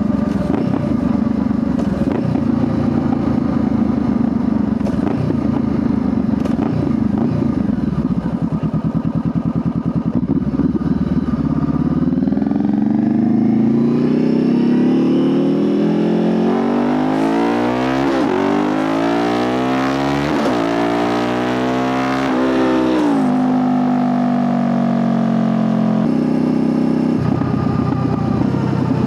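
Honda CBR500R's parallel-twin engine running steadily, then revving up from about twelve seconds in as the pitch climbs for several seconds. It drops back near the end.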